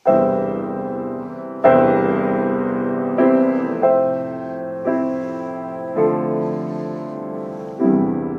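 Steinway Model B grand piano played in slow chords, about seven struck roughly a second apart, each left ringing into the next.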